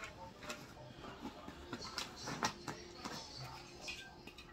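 Rustling and light clicks and knocks of school items such as pens being handled and put into a fabric backpack, many small irregular sounds.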